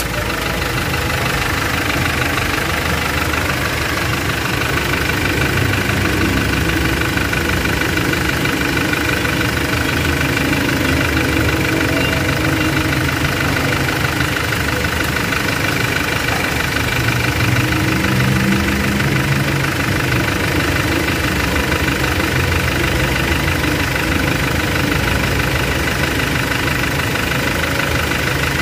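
Hyundai Porter II's common-rail diesel engine idling steadily.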